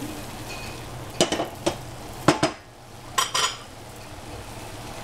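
A utensil clinking and scraping against cookware: about six sharp knocks in small clusters through the middle, over a steady low hiss.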